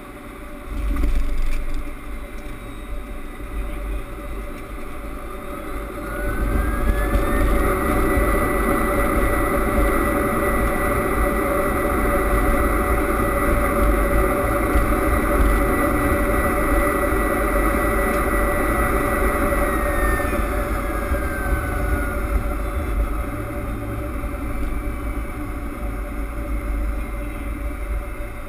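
Boeing 767 landing heard from the cockpit. A firm touchdown bump comes about a second in. From about six seconds the engines spool up into reverse thrust, a rising whine over a loud rushing noise that holds steady, then winds back down at about twenty seconds, leaving runway rolling noise as the airliner slows.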